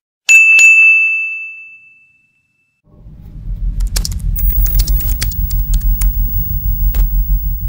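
A bell-icon notification ding, one bright strike ringing out and fading over about two seconds. Then a low pulsing rumble swells in with scattered sharp clicks like keystrokes as text types out.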